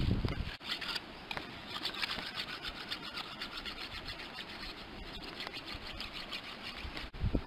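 A knife scraping scales off a fresh river fish against a stone, as a run of quick, irregular scraping strokes. It opens with a brief low rumble.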